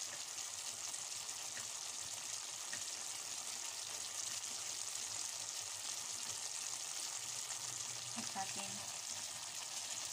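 Chicken, potatoes, carrots and hotdog slices sizzling steadily in a stainless steel pot on the stove, an even high hiss.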